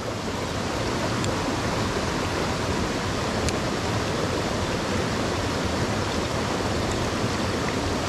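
Mountain stream water rushing steadily over rocks, an even hiss with no let-up.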